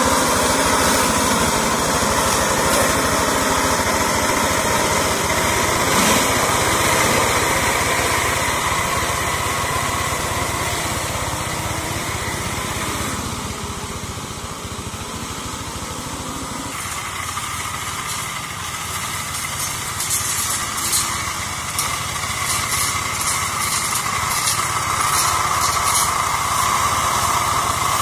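Engine of a two-wheel hand tractor converted into a brush-clearing mower, running steadily. It fades for a few seconds in the middle and grows louder again near the end, with short sharp crackles in the last several seconds.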